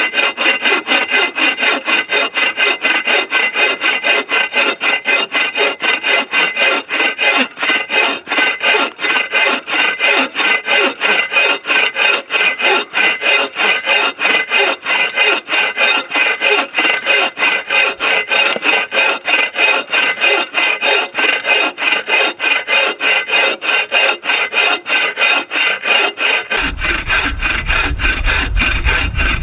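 Hand saw cutting through a thick hardwood log for firewood, in steady back-and-forth strokes about three a second. Near the end a low rumble joins in.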